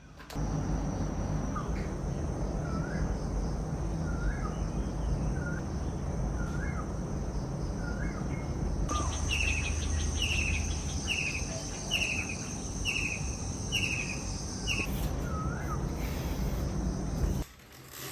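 Birds calling repeatedly over a steady rushing background: a short rising call about once a second, then from about halfway a run of short falling notes at about the same pace, with a high steady insect drone. The ambience cuts off suddenly near the end.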